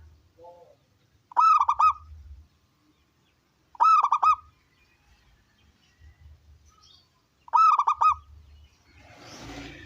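Zebra dove (perkutut) cooing: three separate phrases of a few quick rolling coo notes, each under a second long and a few seconds apart. A brief burst of noise follows near the end.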